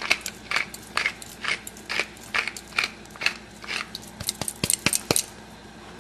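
Hand pepper mill grinding black pepper: a crunchy crackle with each twist, about two a second, quickening near the end and stopping about five seconds in.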